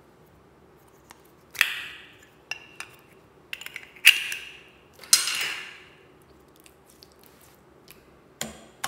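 Sharp clacks of hard plastic slime containers knocking against a glass bowl: three louder knocks with a short ringing tail, among several lighter clicks.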